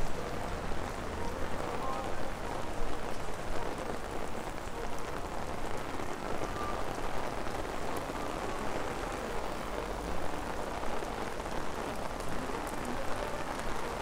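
Steady rain falling on a wet city street: an even hiss with many small drop ticks and a low rumble underneath.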